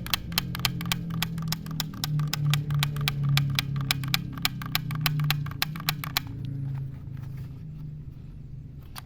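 Battery-operated toy Spider-Man gun going off: a rapid, even clicking, about seven clicks a second, over a low electronic hum, stopping about six seconds in.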